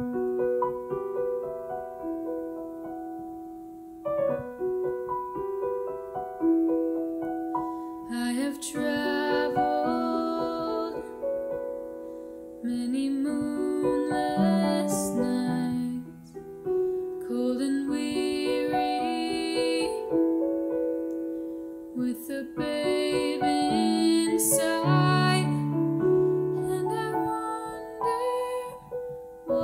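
Digital piano playing a slow introduction, then female voices singing together over it from about eight seconds in, phrase by phrase.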